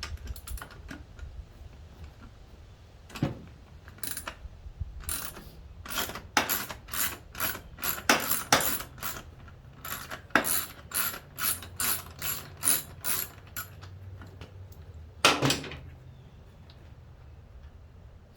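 Hand ratchet wrench being worked on a bolt in short strokes, its pawl clicking about twice a second, with a brief pause partway through and one last louder stroke near the end.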